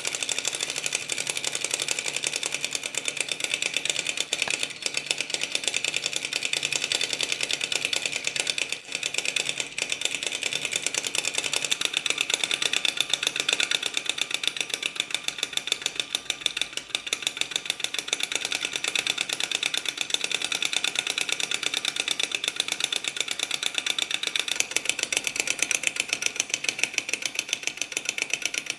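A small flame-licker (vacuum) model engine running steadily, its metal valve curtain and linkage making a rapid, even clicking as the spirit-lamp flame is drawn in and the flywheel spins.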